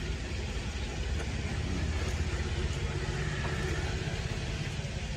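A steady low rumble like an idling engine, with a few faint clicks from metal tongs picking up pieces of fried chicken skin.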